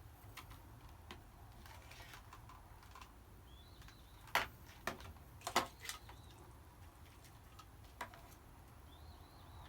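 A few sharp clicks and knocks, bunched a little before the middle with one more near the end, over a faint low hum. Faint bird chirps can be heard now and then.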